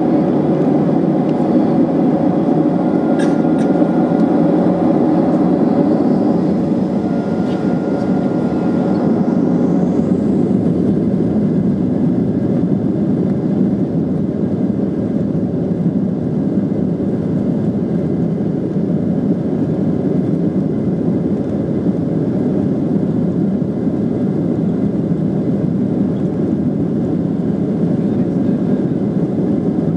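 Boeing 737-800 cabin during taxi: a steady, even rumble from the CFM56-7B turbofan engines at low taxi thrust, mixed with airflow and cabin noise.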